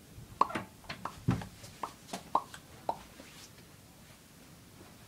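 Light knocks and a heavier thump of someone walking while carrying a handheld phone, about eight irregular steps or bumps in the first three seconds, then quiet room tone.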